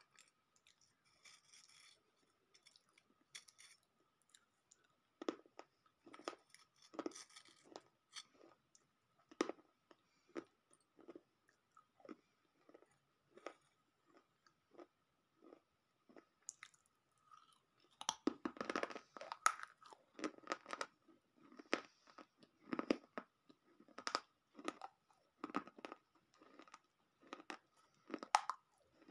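A person biting and chewing brittle pieces of baked clay close to the microphone: a run of dry crunches, one or two a second, getting louder and denser about two-thirds of the way in. A faint steady whine sits underneath.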